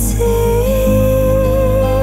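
Background music: a gentle song with a steady low beat, and a long held melody note that starts just after the opening.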